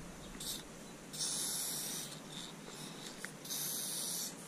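Aerosol spray paint can hissing as white paint is sprayed onto a wall: a short puff, then two sprays of about a second each.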